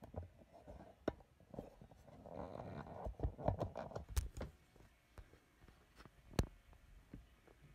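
Faint rustling of bed-tent fabric and bedding, with scattered soft clicks and two sharp ticks, from someone creeping into a child's tented bed with a camera.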